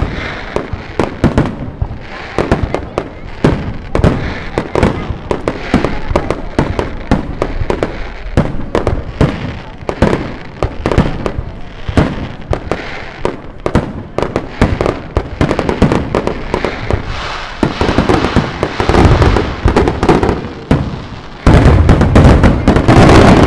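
Fireworks display: a rapid, irregular series of shell bursts and bangs that thickens into a dense, loud, almost continuous barrage of reports in the last few seconds.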